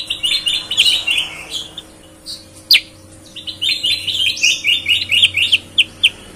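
Caged bulbul (kutilang) singing in a clear voice likened to a leafbird's: two quick stuttering runs of short high notes, separated by a single sharp falling note just under three seconds in.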